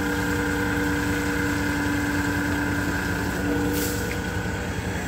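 An engine runs steadily, a low pulsing drone with a few held tones over it. A brief hiss comes about three quarters of the way through.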